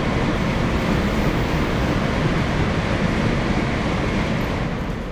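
Rumbling running noise of a train on the line, with no clear pitch. It swells up, holds steady, then fades near the end.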